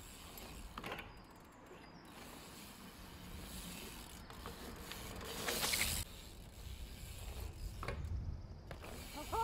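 BMX bike rolling over cobblestones with a ratcheting, mechanical rub. It builds to a louder rush of tyre noise that cuts off suddenly about six seconds in as the bike rides the brick quarter pipe.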